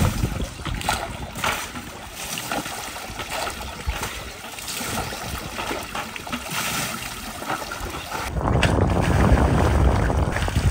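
River water splashing and sloshing around machines standing in the river. About eight seconds in, a louder low rumble takes over.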